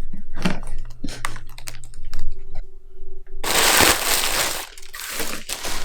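A shipping box being opened by hand: a run of sharp crackles and clicks, then two loud tearing rips, the first about three and a half seconds in and the second near the end.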